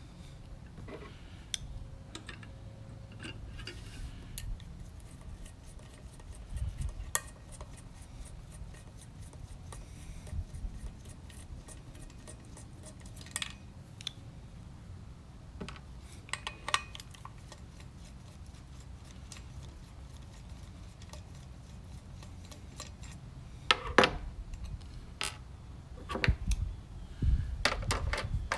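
Hand tools and small metal parts clicking and clinking as screws are backed out of the back of a gauge cluster, with a run of rapid even ticking in the middle and a burst of louder clicks and clinks near the end.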